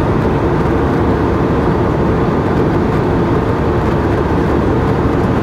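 Steady cabin noise of an Airbus A320 airliner in flight: an even low rumble of engines and rushing air, with a faint steady hum.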